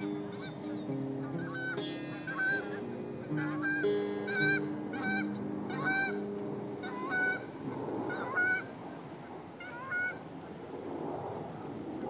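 Birds calling: a string of short, repeated calls, often in pairs, about a second apart. The last notes of an acoustic guitar ring under them and fade out in the first half.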